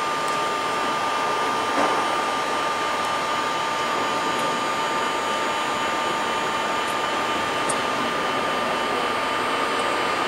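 Electric passenger train standing at the platform, giving a steady whirring hum with two constant high whining tones, and one brief knock about two seconds in.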